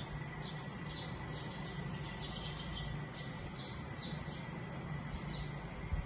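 House sparrow chirping: short chirps repeated at irregular intervals, about two a second, over a steady low background hum.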